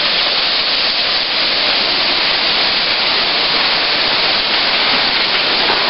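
Caracol Falls, a tall waterfall, rushing without pause: a loud, even hiss of falling water.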